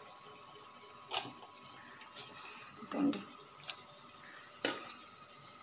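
A steel spoon scooping thick curry from a pot into a steel bowl: a handful of soft clinks and scrapes of the spoon on metal, about one a second, over a faint steady hiss.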